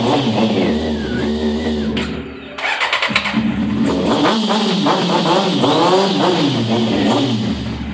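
Kawasaki Z800's inline-four engine revving, its pitch rising and falling. It dips briefly about two seconds in, then picks up again.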